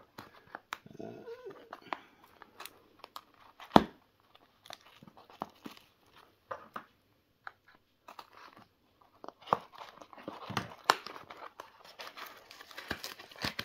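Cardboard USPS Priority Mail small flat rate box being handled: scattered taps and scrapes, a single sharp knock about four seconds in, then denser rustling and scraping of cardboard near the end as the box is being opened. A short whine that rises and falls comes about a second in.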